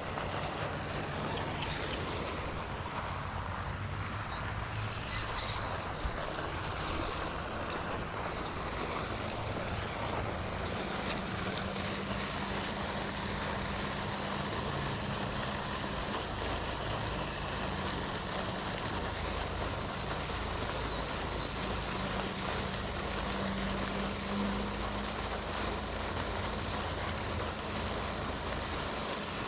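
Steady outdoor background noise with wind on the microphone and a faint low hum. About two-thirds of the way in, a regular series of short high chirps begins, one or two a second.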